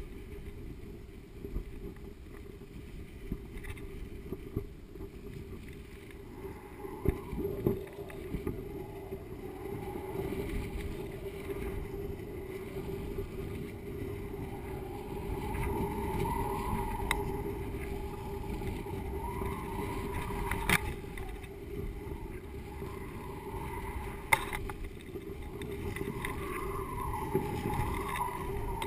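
Wind rushing over a GoPro camera hanging beneath a kite, a steady low rumble. A wavering whistle comes and goes from about a quarter of the way in, and there are two sharp clicks in the second half.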